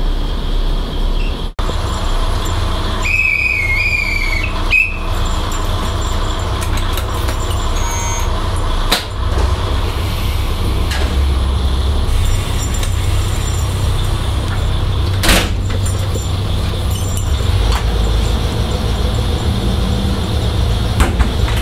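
KiHa 20 diesel railcar's engine running with a steady low rumble as the railcar pulls away from the station, heard from inside the car. Shortly after the start a high whistle sounds for about two seconds, and a few sharp knocks come later.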